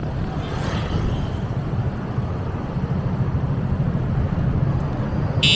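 Steady low rumble of outdoor traffic noise, with a brief high-pitched beep or squeak near the end.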